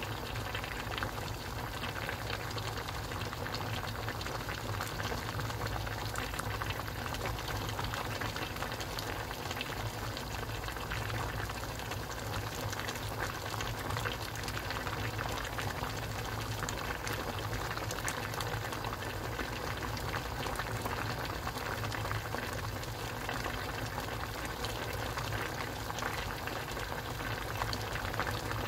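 Pork-belly kimchi stew simmering in a yellow aluminium pot, a steady dense crackle and pop of bubbles breaking on the broth. A low steady hum sits underneath.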